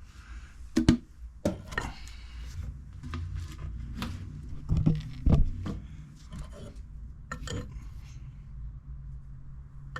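Handling noises while engine oil is being topped up: a series of sharp clicks and knocks, the loudest about a second in and around five seconds in, over a low steady hum.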